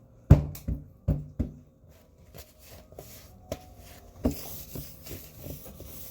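Hands handling a just-opened box and its packaging: several sharp knocks and taps in the first second and a half, scattered lighter taps, then a stretch of rustling from about four seconds in.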